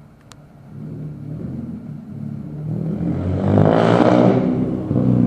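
A car engine growing steadily louder as a vehicle draws close, swelling to its loudest about four seconds in.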